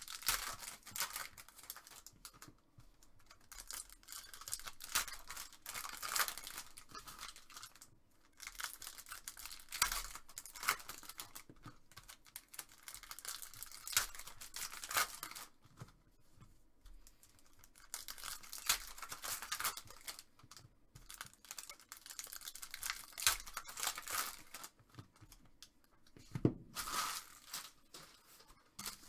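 Plastic trading-card pack wrappers being torn open and crinkled by hand, in repeated bouts with short pauses between them.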